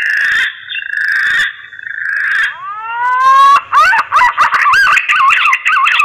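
Punai (green pigeon) calling in musical whistles: a held, wavering whistle, then a rising whistled note about two and a half seconds in that breaks into a rapid run of warbling whistles. It is the mating call used to lure punai.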